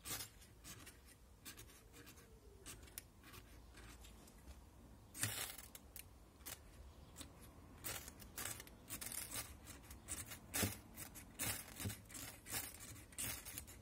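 Ferrocerium rod being scraped again and again to throw sparks onto cellulose-paper tinder: short, sharp rasping strokes, a few at first and coming faster after about eight seconds.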